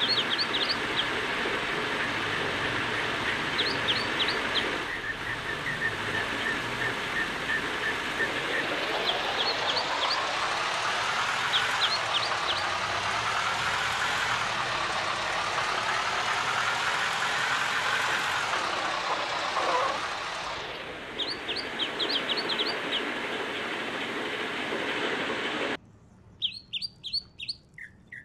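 Birds chirping in quick bursts of high notes, repeated every few seconds over a steady outdoor hiss. Through the middle a lower droning tone slowly rises and falls. The background hiss cuts off suddenly near the end, leaving the chirps on a quieter background.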